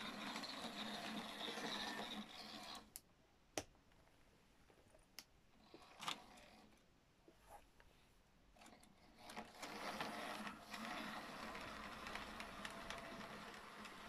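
Small electric motor of an OO gauge model Class 06 diesel shunter running, with its wheels rolling on the track, in two stretches with a quieter pause of several seconds between. A few sharp clicks sound during the pause.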